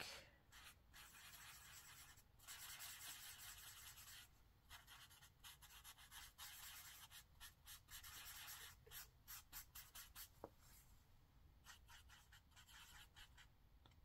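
Faint scratching of a marker's broad chisel tip stroked over paper, colouring in an area: one longer run of strokes about two seconds in, then many short, quick back-and-forth strokes.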